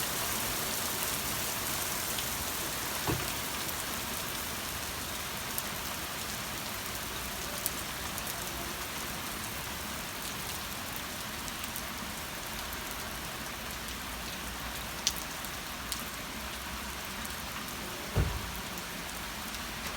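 Steady rain falling, an even continuous hiss, with a few louder single drops or taps scattered through it.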